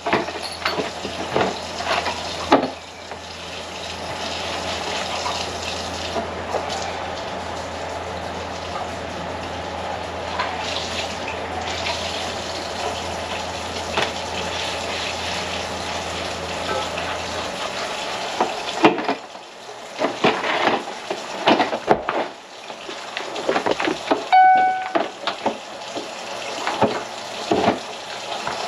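Water running steadily from a kitchen tap into the sink, with a low hum underneath. About eighteen seconds in the hum stops and the steady flow gives way to irregular splashing, knocks and clatter, with one short high tone near the end.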